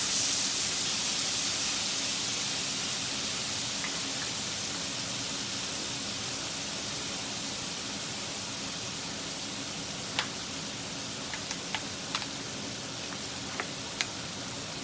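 Food sizzling in hot oil in a frying pan, a steady hiss that slowly dies down after the heat has been turned down to medium, with a few sharp pops from about ten seconds in.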